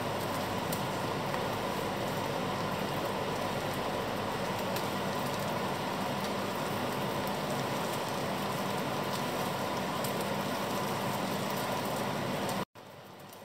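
Steady sizzling of dried fish and fried shallots frying in a stainless steel pan, over a constant hum. Near the end it cuts off abruptly and comes back as a quieter sizzle.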